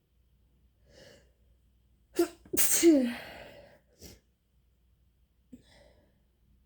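A person sneezing once, loudly, in a deliberately induced sneeze: a short breath in, a sharp catch, then the main burst with a voiced tail that falls in pitch. A brief breath or sniff follows about a second later.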